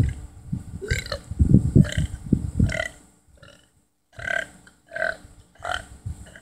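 A person burping on purpose: a run of long, rough, loud burps over the first three seconds, then, after a short pause, three shorter, quieter burps in quick succession.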